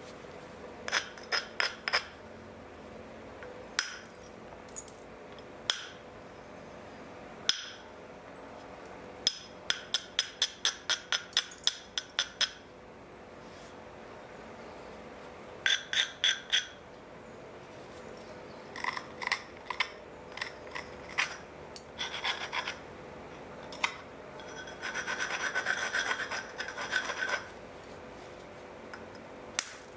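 Helgoland flint being knapped into a dagger: bursts of sharp, ringing clicks as the flint is worked, including one fast run of about a dozen. Near the end comes about two seconds of steady scraping, like the edge being rubbed or abraded.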